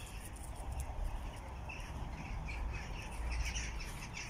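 Birds chirping in short, high notes, a few a second, starting a little before halfway, over a steady low rumble.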